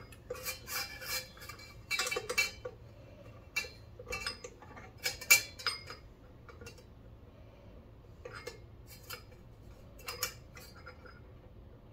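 Light metal clinks and rattles as the EP 2.0 annealer's rod and plates are adjusted by hand and a brass case is set against the aluminium drum, a scatter of short clicks, busiest in the first six seconds and sparse after.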